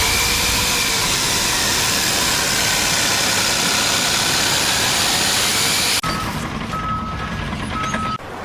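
Loud steady engine noise from heavy machinery, with a dense hiss over it. About six seconds in it cuts to a quieter scene where an alarm beeps three times at one pitch, typical of a vehicle's reversing alarm.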